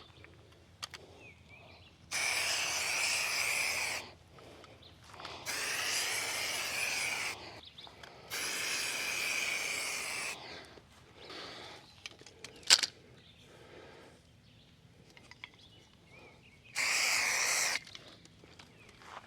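Aerosol can of marking paint spraying in four hissing bursts while a line is painted on the ground: three of about two seconds each, then a shorter one near the end. A single sharp click comes between the third and fourth bursts.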